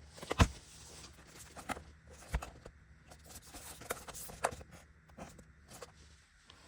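Handling noise: irregular clicks, taps and knocks of small hard parts being handled, the loudest knock about half a second in.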